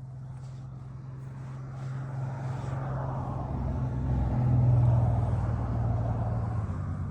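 A motor vehicle passing by: a low engine hum with tyre noise grows louder, peaks about five seconds in, then fades.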